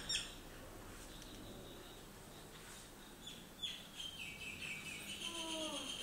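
Birds chirping: a few short falling chirps, then a longer high note that begins about four seconds in.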